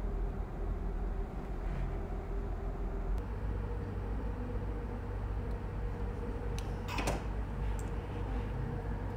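Steady low machine hum with a faint steady tone that shifts in pitch about three seconds in. A short, sharp scratchy noise comes about seven seconds in.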